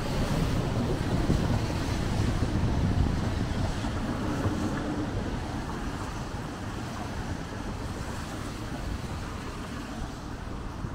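Busy street on a wet day: traffic passing on rain-soaked pavement with steady tyre hiss, under a low wind rumble on the microphone. The noise slowly gets quieter over the stretch.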